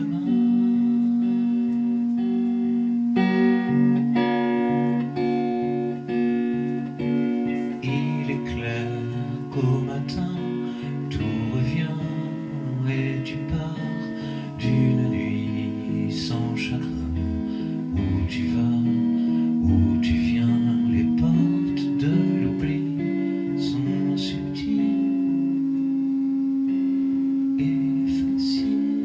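Live band music: electric guitar and keyboard playing, with long held notes under plucked guitar, and a singer's voice in places.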